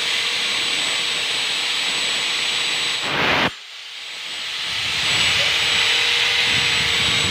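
Handheld angle grinder running with a steady high whine. About three and a half seconds in, the sound drops off abruptly, then builds back up to full speed over the next second or two.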